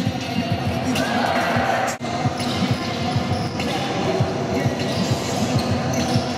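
A basketball bouncing repeatedly on a sports-hall floor during a game, with music playing underneath.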